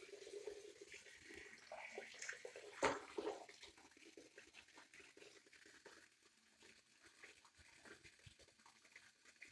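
Faint running tap water pouring into a shallow sink of water, with small splashes from a baby monkey moving in it. There is one short, louder splash just before three seconds in, and the sound grows fainter after about four seconds.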